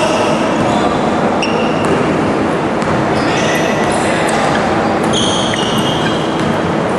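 Basketball players' sneakers squeaking on a gym floor in short high squeals, with a basketball bouncing, over a steady wash of crowd and hall noise.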